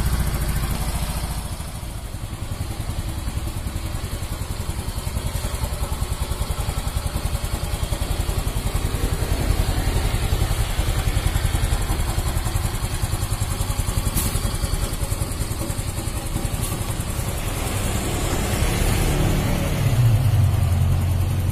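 Yamaha Mio M3 125 scooter's single-cylinder four-stroke engine idling steadily after a connecting-rod replacement, running smoothly now that the worn, loose connecting rod that caused the trouble is gone. It gets briefly louder near the end.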